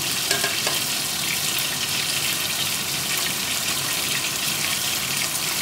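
Prawns and chopped onion frying in hot oil in an aluminium pot: a steady sizzle.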